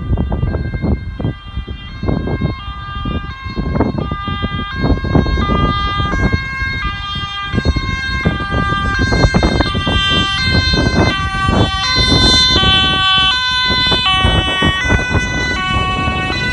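Dutch ambulance's two-tone siren alternating between a high and a low note, the sign of an A1 emergency run under lights and sirens. It grows louder as the ambulance approaches, over a loud low rumbling.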